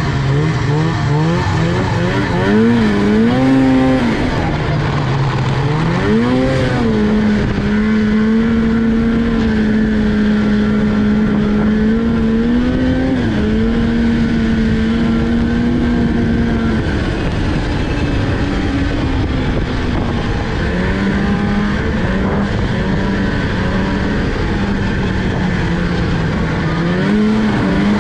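Snowmobile engine running hard along a trail. It revs up twice in the first several seconds, holds a steady pitch for a long stretch, drops off a little past the middle, then settles again and revs once more near the end, with a rush of wind noise over it.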